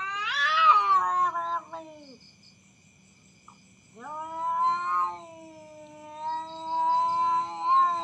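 Cats caterwauling in a standoff before a fight. One long yowl rises and then falls in pitch. After a gap of about two seconds, a second long yowl holds a steady pitch.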